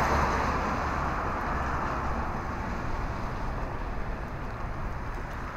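Road traffic on wet pavement: a steady tyre hiss with a low rumble, slowly fading away.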